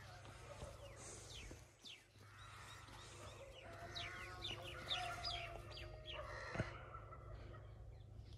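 Faint bird calls, fowl-like clucks and a run of quick falling chirps, bunched a little after the middle, over a low outdoor background with one sharp click near the end.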